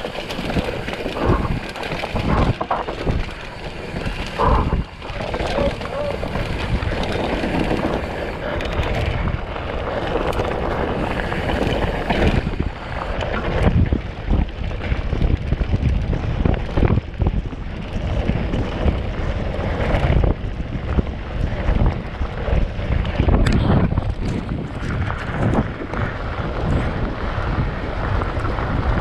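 Enduro dirt bike riding on a trail, its engine running under heavy wind buffeting on the microphone, with irregular low thumps throughout.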